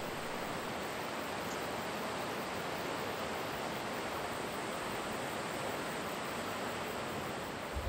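River water flowing fast over a stony bed, a steady rushing sound.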